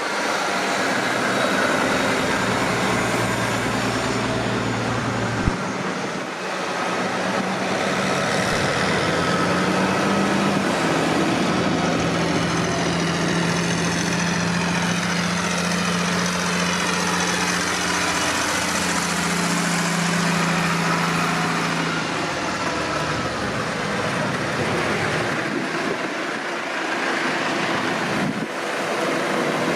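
Tractor engines running as tractors drive past, the engine note shifting several times as different machines go by. There is a short sharp click about five seconds in.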